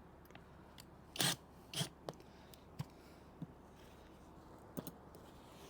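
Handling sounds of an awning storm strap's hardware being fastened: a short scrape about a second in, another just before two seconds, then a few light clicks of the metal spring and buckle.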